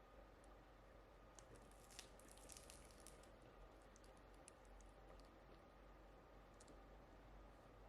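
Faint clicks and crackles over a quiet room, bunched together between about one and a half and three seconds in, then a few scattered ticks.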